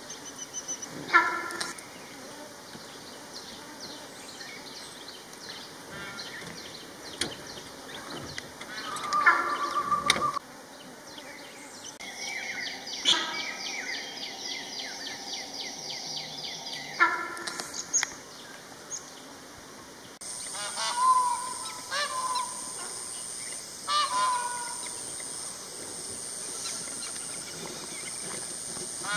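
Loud, honking animal calls ring out through the forest several times at irregular intervals, each a short pitched call. About two-thirds of the way in, a high pulsing insect buzz joins them.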